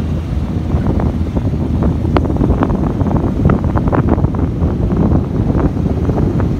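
Wind rumbling and buffeting against the microphone of a moving vehicle, over steady engine and road noise, with frequent short crackles.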